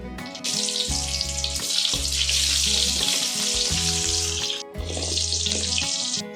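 Frying in hot oil in a pan: a loud steady sizzle in two stretches, broken briefly a little past halfway, over background music.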